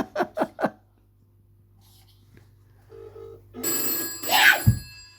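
A telephone call ringing through: a short, steady ring-back burr is heard on the line about three seconds in. It is followed near four seconds by the loudest sound, a burst of ringing with several high, steady tones.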